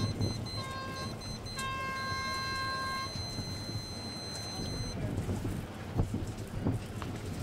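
Electronic race-start signal: a short beep, then about a second later one long beep lasting about a second and a half, the end of a countdown whose long beep marks the start. Low wind rumble on the microphone underneath, with a couple of sharp buffets near the end.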